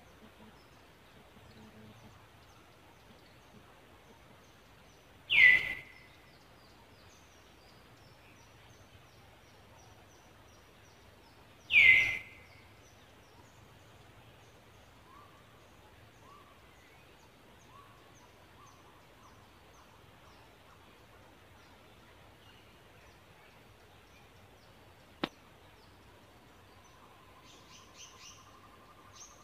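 Two loud, short calls that each slide down in pitch, about six seconds apart, over faint high chirping.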